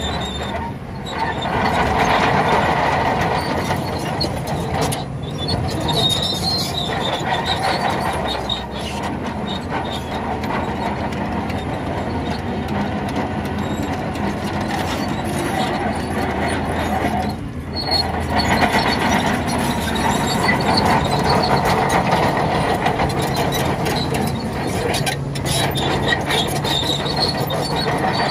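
Crawler bulldozer working: its diesel engine running steadily under load while the steel tracks clank and squeal.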